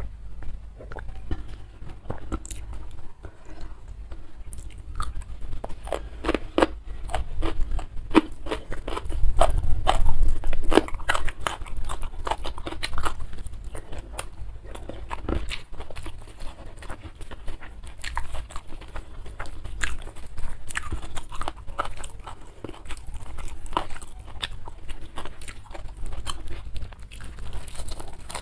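Close-miked chewing and crunching of rice with sambal and raw leafy greens, a dense run of small crisp bite and chew clicks.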